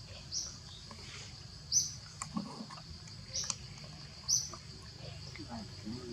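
Short, high-pitched animal chirps, one every second or so, over a steady high insect buzz.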